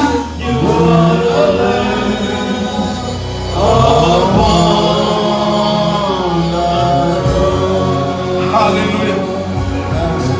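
Gospel worship song sung by a group of voices over steady instrumental backing.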